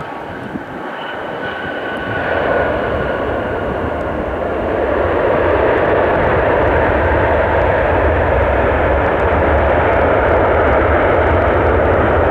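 Boeing 757-300's twin jet engines roaring during the landing rollout, with a faint whine early on, swelling about 2 s in and again about 5 s in to a steady, loud roar, the typical sound of reverse thrust slowing the airliner after touchdown.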